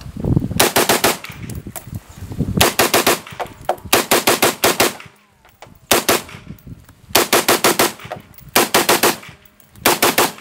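Knight's Armament SR-15 Mod1 5.56 mm AR-15 rifle fired in quick strings of three to five shots each, about eight strings with short pauses between them.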